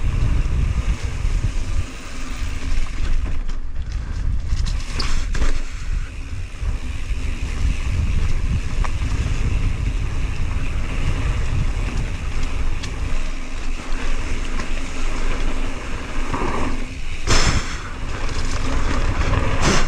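Wind buffeting the microphone during a mountain bike ride on a dirt trail, over the rolling noise of the tyres. A few sharp knocks and rattles from the bike come about four to five seconds in and again near the end.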